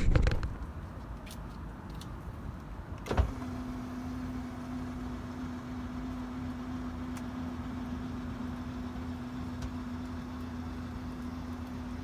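A click about three seconds in, then an electric power seat motor running with a steady hum as it drives the seat along its track.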